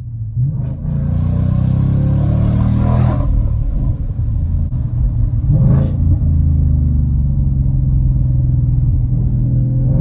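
A 2020 Mustang GT's 5.0 L V8 through an MBRP Race 3-inch cat-back exhaust, heard from inside the cabin while driving: a loud, deep rumble that climbs in pitch over the first few seconds as it accelerates, then drops back. A short sharp burst comes about halfway through, followed by a steady exhaust drone.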